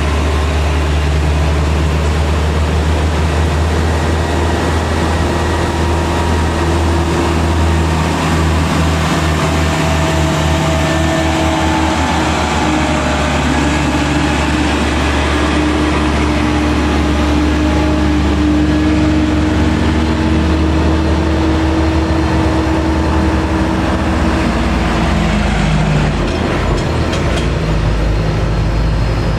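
Heavy diesel truck engine pulling up a steep grade: a loud, deep, steady drone whose pitch drifts slowly, shifting near the end.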